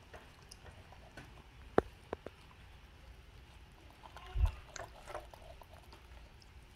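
Baby monkeys picking sweet corn kernels off plates and eating them: mostly quiet, with a couple of sharp clicks about two seconds in and a dull thump past the middle.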